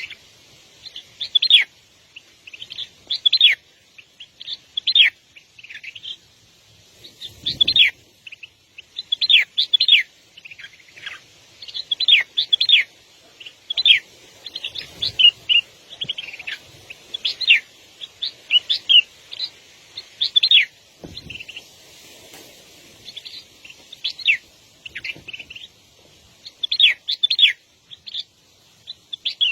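Small bird chirping repeatedly: short calls that each sweep down in pitch, about one or two a second, keeping on without a break.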